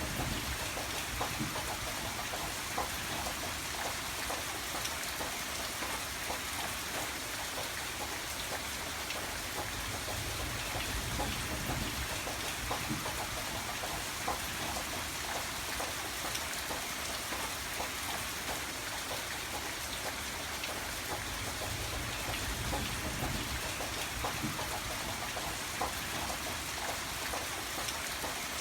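Steady rainfall, with many individual drops pattering on a surface.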